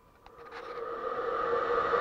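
An ebm-papst radial blower with newly replaced motor bearings is switched on at full power and spins up. A few clicks are followed by a rush of air with a steady whine that grows steadily louder from about half a second in. The air noise is louder than the bearings.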